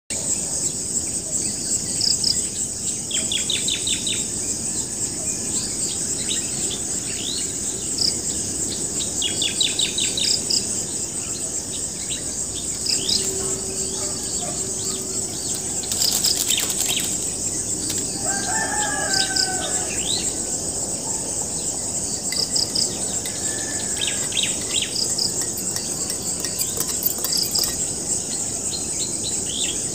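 Morning countryside sounds: a steady high-pitched shrill of insects throughout, with many short bird chirps and trills, and a rooster crowing once about eighteen seconds in.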